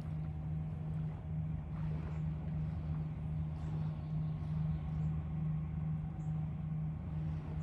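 Diesel engines of a river towboat pushing a barge, heard as a steady low drone with a slow pulsing hum.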